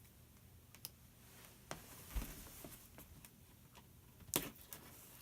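A few scattered light clicks and knocks from a pocket knife being opened and a package being handled, with one dull knock a little after two seconds and the sharpest click about four seconds in.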